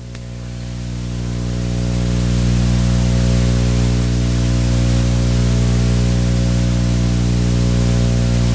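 Loud electrical hum and static in the audio feed: a steady buzz of many even tones over a bed of hiss that swells up over the first two seconds and then holds, the sign of a sound-system fault.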